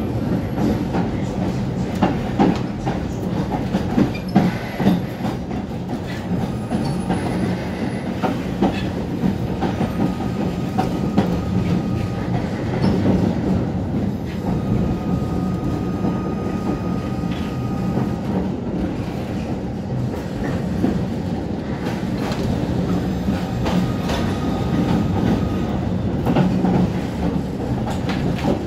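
Tatra-Yug K1M8 tram running along the track, heard from inside the passenger saloon: a steady rumble of wheels on rail with scattered clicks over the rail joints. A faint thin whine comes and goes now and then.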